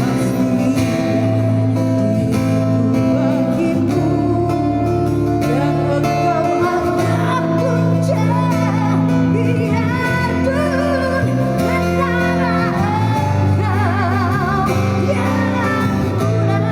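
A woman singing a song with vibrato over strummed acoustic guitar and steady low bass notes; the voice comes in about three seconds in, after a short instrumental passage.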